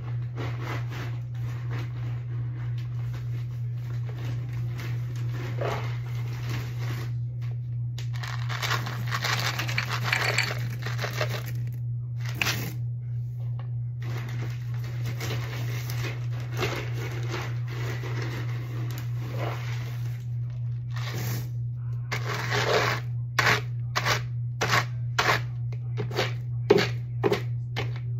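A plastic bag of pellets rustling as a plastic cup is dipped in and scooped. Near the end comes a quick string of clicks and rattles as pellets are poured out. A steady low hum sits under it all.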